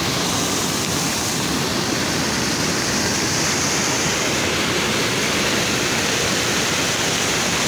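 Muddy floodwater rushing in a fast torrent: a steady, loud rush of water with no breaks.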